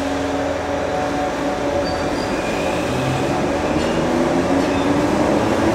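British Rail Class 313 electric train pulling away from an underground platform, a steady electric hum that rises slightly in pitch and grows louder as it gathers speed.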